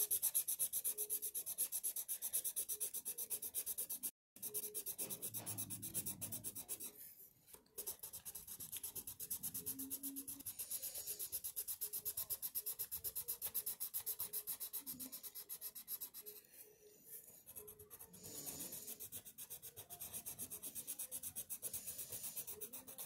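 Coloured pencil shading on paper: quick, even back-and-forth strokes scratching across the sheet, several a second, pausing briefly a few times.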